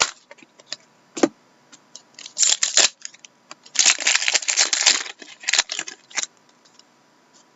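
Hockey trading cards and their packaging being handled: scattered clicks and taps, with two louder stretches of rustling and crinkling, about two seconds in and again around four to five seconds in.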